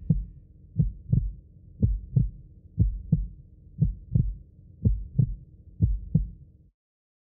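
Heartbeat sound effect: low, paired lub-dub thumps, one pair a second, seven times over a faint steady hum, cutting off suddenly near the end.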